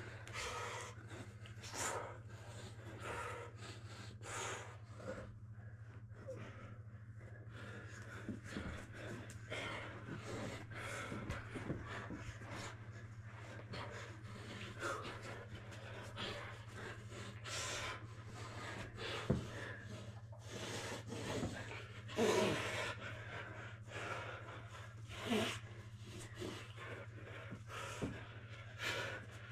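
Grapplers breathing hard and panting, with irregular scuffs and rustles of bodies and clothing shifting against each other, over a steady low hum.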